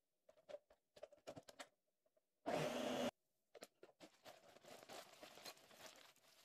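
A few light clicks, then a countertop blender runs in one short pulse of about half a second, puréeing onion, garlic and green herbs. After that comes a soft, continuous dry crackle and scrape as ground spices are poured onto dried herbs in a ceramic bowl with a metal spoon.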